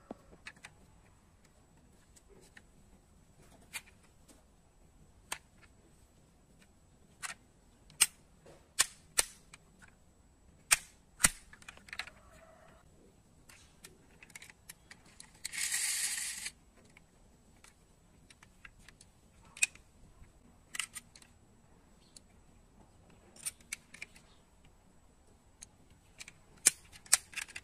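Irregular small clicks and taps from die-cast metal model cars being handled: hinged doors clicking open and shut and the models knocking on a hard surface. About sixteen seconds in comes one brief rustling, scraping burst.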